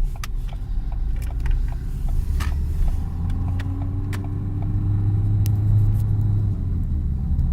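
Car driving off, heard from inside the cabin: a strong low rumble of engine and road, with a tone that rises in pitch from about two and a half seconds in as the car picks up speed, then levels off. A few scattered clicks.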